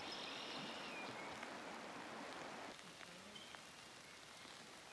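Light rain falling, a faint steady hiss of drops with a few soft ticks. It turns a little quieter a little under three seconds in.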